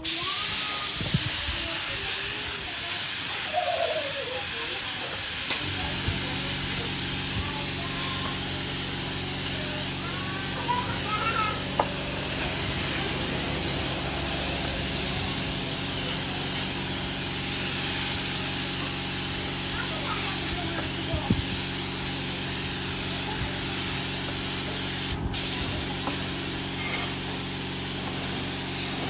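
Paint spray gun spraying candy blue-tosca paint onto a silver-based motorcycle body panel, a loud steady hiss of atomising air. A steady low mechanical hum joins about six seconds in, and the hiss breaks off for a moment about 25 seconds in as the trigger is let go.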